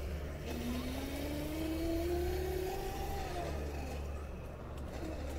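A small electric motor whining, its pitch climbing steadily as it speeds up for about two and a half seconds, then dropping away. Underneath is a steady low rumble of wind on the microphone.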